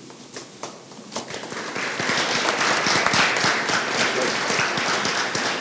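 Audience applauding, swelling over the first couple of seconds and then holding steady.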